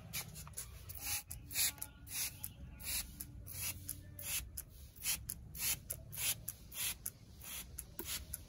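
Hand trigger spray bottle squirting oil onto a tractor's rear hitch linkage: short hissing spurts, about two a second, over a low steady hum.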